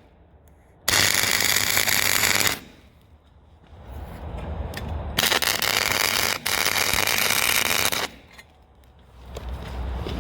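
MIG welder arc crackling in two bursts, the first about a second and a half long and the second about three seconds with a brief break, as beads are laid on steel.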